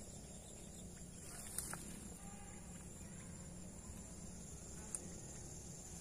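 Insects chirring in a faint, steady, high-pitched drone, with two short clicks, about one and a half seconds in and near the end.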